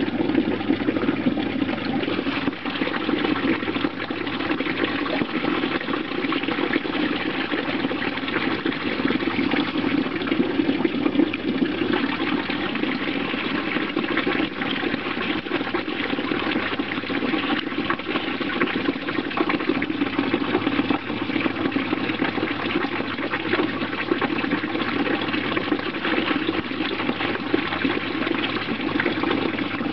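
Running water, a steady unbroken rush.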